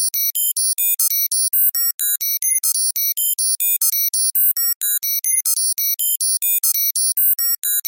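Computer data-processing sound effect: a rapid, unbroken stream of short, high electronic bleeps that jump from pitch to pitch, about six a second.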